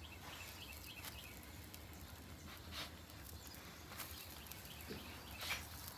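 A silicone spatula scrapes and taps softly against a flat-top griddle as pancakes are slid up and flipped, a few short knocks over a faint sizzle of pancakes frying in butter and grease.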